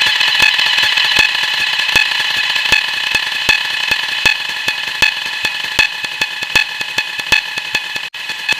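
A short sound stacked over itself many times, giving a dense run of sharp clicks, several a second, over a steady high-pitched drone.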